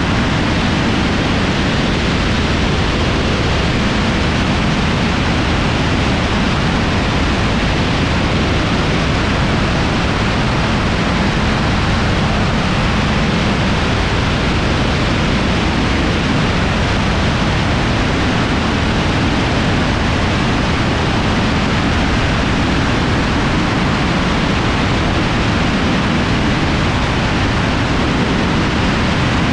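Steady, loud rush of airflow over a camera mounted on an aircraft's wing in flight, an unbroken roar heaviest in the low end.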